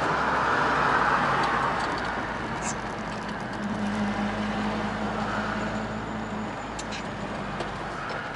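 A car being driven: steady engine and road noise, with a low humming tone that sounds for a few seconds in the middle.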